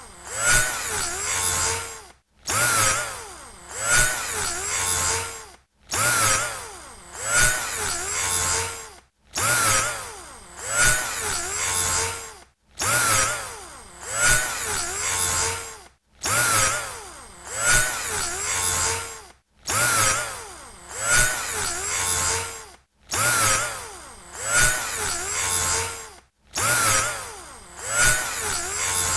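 Electric drill motor whirring in repeated bursts of a few seconds each, its pitch swooping up and down within each burst. Each burst cuts off briefly before the next begins, about every three and a half seconds.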